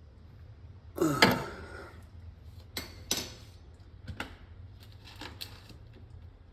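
Hand tools being handled and set down: a louder metal clatter about a second in, then several separate light clinks and knocks.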